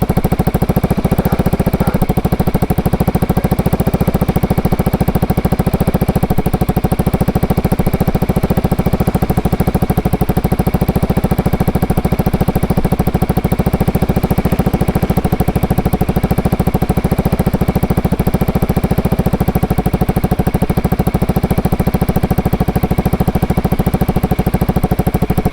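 Yamaha XMAX scooter's single-cylinder engine idling steadily through an aftermarket Aka-style exhaust with a titanium header, its dB-killer silencer plug fitted. A loud, even, rapid exhaust pulse that holds the same speed throughout.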